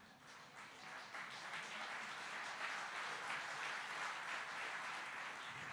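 Audience applauding, the clapping swelling within the first second and holding steady.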